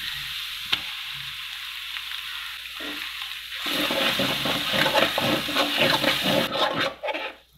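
Hot oil sizzling in a metal kadai as a ground masala paste is spooned in. From about halfway a metal ladle stirs and scrapes the paste around the pan, and the sizzle dies down near the end.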